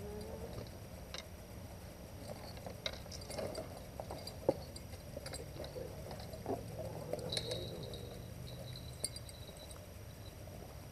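Faint scattered clicks and rustles of a fishing rod and reel being handled, over a low steady hum. One sharper click comes about four and a half seconds in, and a short high whine a little after seven seconds.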